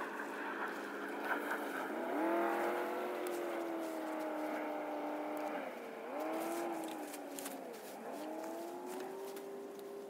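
An engine running steadily, its pitch rising about two seconds in and dipping briefly twice. Light rustling and crinkling of a tarp being spread out on grass.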